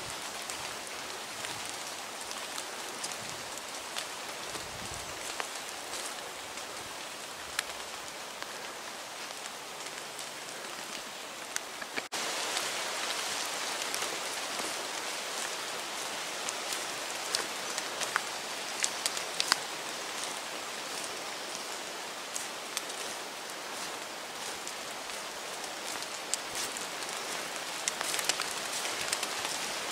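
Steady rain falling on forest foliage, with many scattered sharp drop ticks; it gets a little louder about twelve seconds in.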